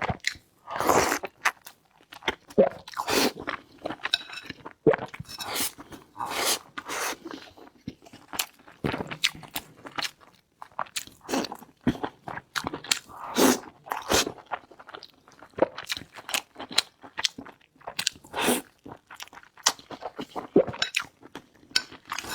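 A person chewing and biting chunks of braised pork close to the microphone: irregular bursts of mouth noise with sharp clicks.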